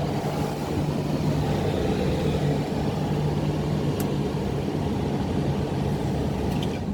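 Motorhome roof air cooler unit running on its high cool setting: fan blowing air through the vent with a steady hum.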